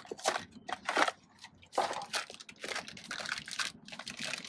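Cardboard box and plastic bag crinkling and rustling in the hands as a new brake wheel cylinder is unpacked: irregular crackles and scrapes with no steady rhythm.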